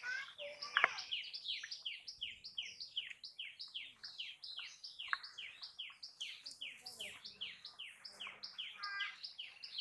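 A small bird calling: a rapid, steady series of short notes, each falling in pitch, about four a second.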